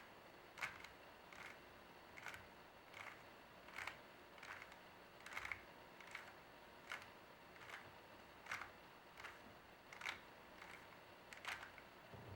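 Rubik's cube being turned through an algorithm, each face turn giving a short, faint click, about one every three-quarters of a second.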